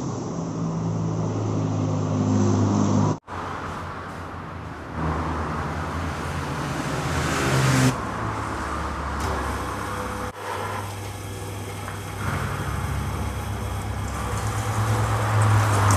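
Motor-driven meat grinder running steadily while mincing meat, a continuous low mechanical hum, cut off briefly about three seconds in and again about ten seconds in.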